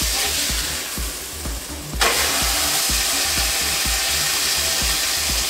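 Burger patty sizzling in a hot skillet as it is flipped; the sizzle thins for about a second, then comes back loud about two seconds in. Background music with a steady beat plays underneath.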